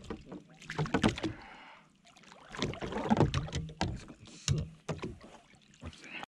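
Water splashing around a kayak as a fish shot with a bowfishing arrow is hauled up alongside on the line, with sharp knocks against the boat in irregular bursts, strongest about a second in and around three seconds in. The sound cuts off suddenly near the end.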